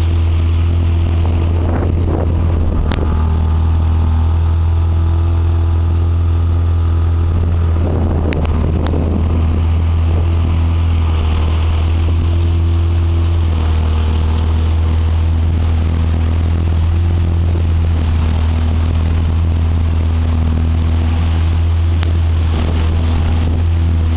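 A boat engine running steadily at cruising speed, a deep even hum, with water rushing along the hull and a few faint clicks.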